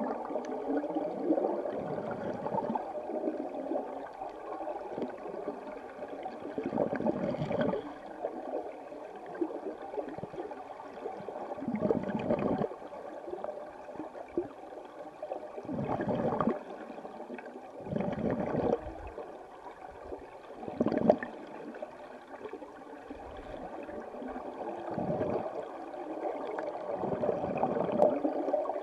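River current heard underwater through a submerged camera: a muffled, steady rushing and gurgling, swelling louder several times.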